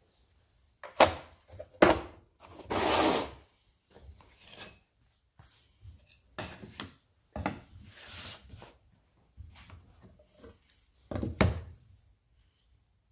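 Hand work on a car door: several sharp knocks, and a short scraping rub about three seconds in, with softer handling noises between.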